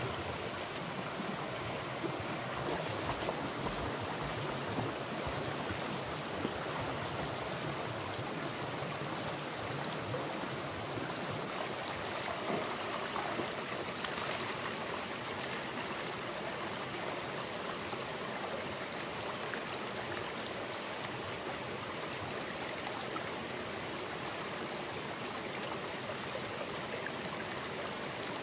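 Stream water flowing steadily over rocks, an even rushing with a few small knocks in the first half.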